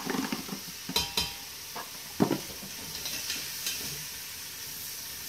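Chopped celery, onion and green pepper sizzling in melted butter in a stainless steel pot, with a spoon scraping and knocking against the pot as they are stirred. A few sharp knocks stand out, the loudest a little past two seconds in.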